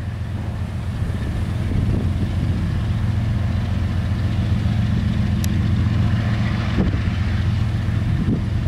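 Diesel locomotives of a KCSM freight train running with a steady low drone as they approach slowly at the head of a double-stack container train.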